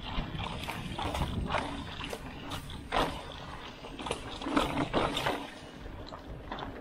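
Bicycle rattling along a rough forest trail: irregular clicks, knocks and rattles from the bike over a steady rushing noise, busiest from about one to five seconds in.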